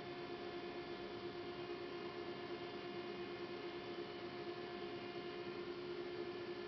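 Steady electrical hum from a powered-up CNC lathe and its Heidenhain control, with one strong constant tone and fainter higher tones above it. One of the fainter tones drops out about five and a half seconds in.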